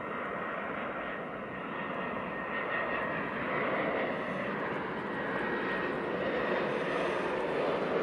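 Jet engines of an Airbus A319 on final approach, a steady rushing noise with a faint high whine that grows gradually louder as the airliner comes in to land.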